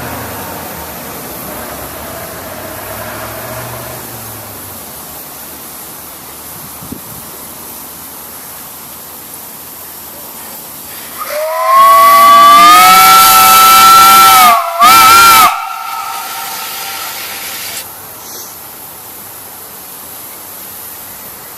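Large whistle on a whistle cart. A steady hiss runs under it. About eleven seconds in, the whistle opens with a loud blast that slides up in pitch to a steady chord of tones and holds for about three seconds. It breaks off, gives one short second toot, and dies away into the hiss.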